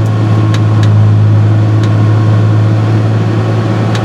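John Deere 6068 inline six-cylinder diesel of a harvester running steadily at operating temperature, a loud even hum, with a few light clicks.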